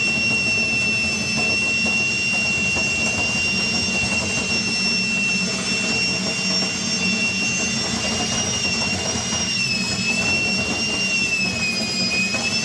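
Power drill spinning a dryer vent cleaning brush on flexible rods inside the vent duct, with a steady high whine. The pitch dips slightly twice near the end as the brush meets more load.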